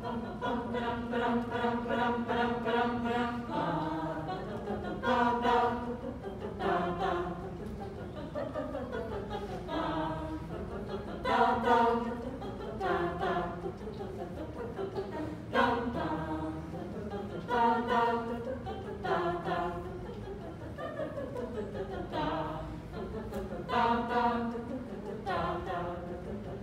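A choir singing a cappella: a chord held for the first few seconds, then a series of shorter phrases that swell and fade every second or two.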